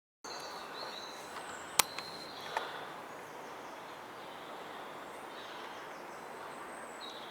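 Outdoor background noise with birds chirping. A single sharp click about two seconds in is followed by a fainter knock.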